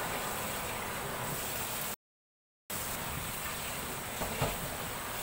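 Tap water running steadily into a kitchen sink during dishwashing, with a small knock of an item in the sink about four seconds in. The sound cuts out completely for under a second near the middle.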